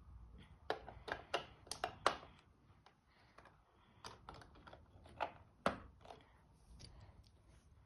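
Plastic Lego bricks clicking and tapping as they are handled during building: a quick run of sharp clicks in the first couple of seconds, then scattered single clicks.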